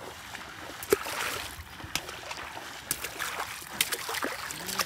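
Lake water splashing and sloshing as a person wades through it, beating the water to drive fish toward a gill net; sharp splashes come about once a second over a steady wash of water.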